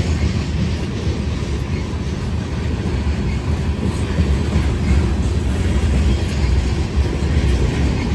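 Covered hopper cars of a passing freight train rolling by: a steady rumble of steel wheels on the rails.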